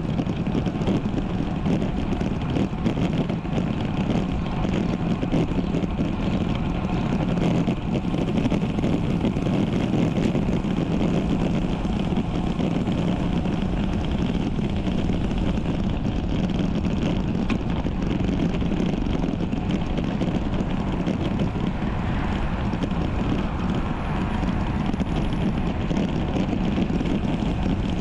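Steady wind and road noise from a road bike being ridden, picked up by a bike-mounted action camera's microphone.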